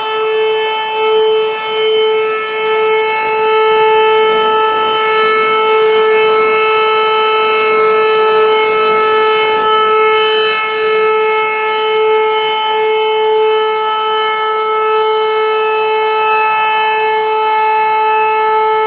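Volunteer fire station siren sounding during a test, holding one steady high tone with its overtones rather than rising and falling.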